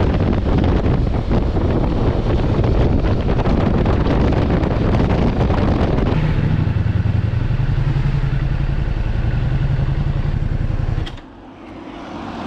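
Ducati Multistrada V4 S motorcycle's V4 engine running under way, with rushing wind noise. About six seconds in the rush eases and a steady low engine hum remains, then the sound drops away abruptly near the end.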